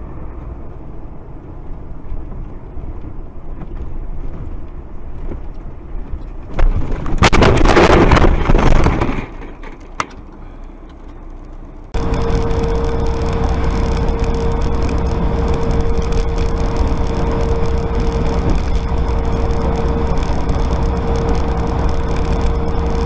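Dashcam vehicle noise. A low road rumble is broken by a loud, rough noise lasting about two and a half seconds and then a single click. It switches suddenly to the steady drone of a truck cab at highway speed, with a constant hum held at one pitch.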